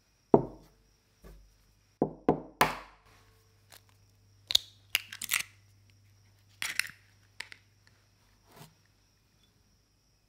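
A ceramic egg separator is set down on the table with a sharp knock, then an egg is tapped three times in quick succession and its shell cracked and pulled apart with crisp crackling, followed by a few lighter clicks.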